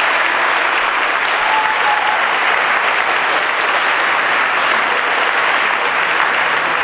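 A large audience applauding, a dense and steady clapping.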